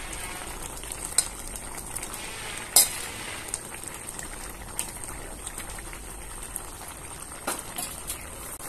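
Fish curry gravy with cauliflower and potato bubbling at a steady simmer in a kadai. A few sharp clicks break in as fried fish pieces are laid into the pan, the loudest about three seconds in.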